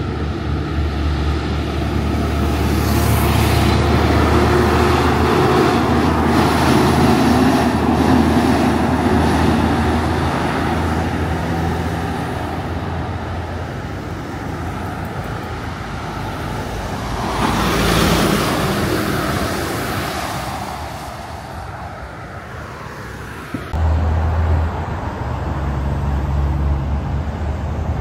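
Heavy trucks passing on a highway: diesel engine drone and tyre noise swelling as each one goes by. One long pass comes early and a shorter one just past the middle. About three quarters of the way in, a different engine sound cuts in abruptly.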